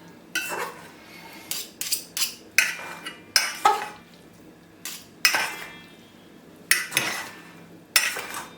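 A utensil clinking and scraping against a bowl as a chopped onion, tomato and mango salad is stirred and tossed, in irregular strikes with a short ringing tone after several of them.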